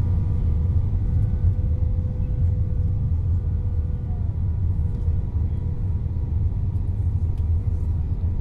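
Airbus A319 cabin noise in flight, heard from a window seat over the wing: a steady low rumble of the engines and airflow, with a constant hum of several engine tones. It stays even throughout.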